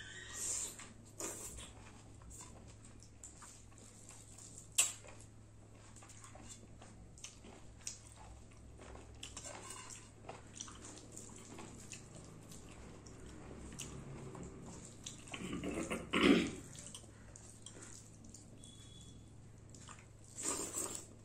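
Close-up eating sounds: wet chewing and mouth clicks of a person eating rice by hand, with fingers squelching food in a steel plate. Small clicks run throughout, with one sharp click about five seconds in and louder bursts about sixteen seconds in and near the end, over a steady low hum.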